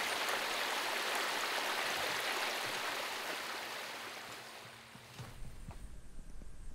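Small creek water spilling over a low rock ledge, a steady rushing trickle that fades out about five seconds in, leaving faint outdoor quiet with a low rumble.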